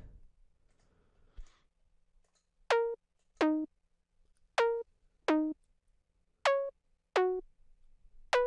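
Dry synthesizer pluck patch playing a simple pattern of short plucked notes in pairs, seven notes in all, starting about a third of the way in. Each note stops short with no echo tail: no delay is applied yet.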